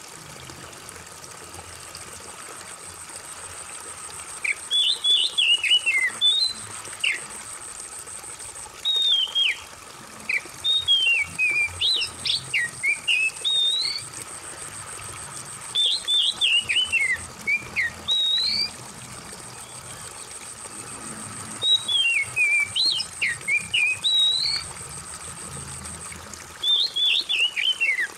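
Oriental magpie-robin (kacer) song in five bursts of quick, varied whistled notes a few seconds apart, over a steady trickle of running water.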